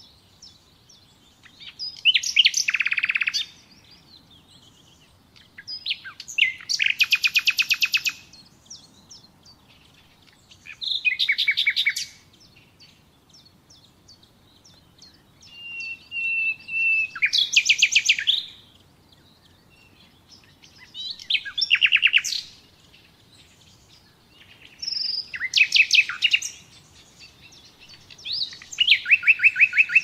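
Common nightingale singing: about seven separate phrases a few seconds apart, each a second or two of fast repeated notes and trills, one of them beginning with a drawn-out whistle midway.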